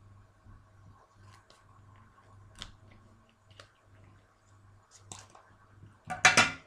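Scissors snipping open a paper-and-foil nicotine patch packet, with scattered small clicks and crinkles of the packaging, then a louder half-second rustle of the packet near the end.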